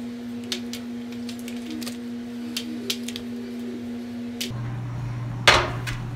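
Light clicks and taps of macaron shells being picked off a metal baking tray and set into a plastic tray, over a steady hum. About four and a half seconds in, a stand mixer runs with a lower steady motor hum as its beater whips butter in a steel bowl, with one loud clatter a second later.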